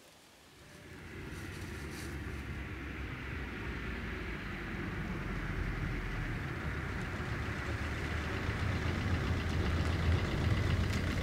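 A car driving up, its engine sound growing steadily louder as it approaches.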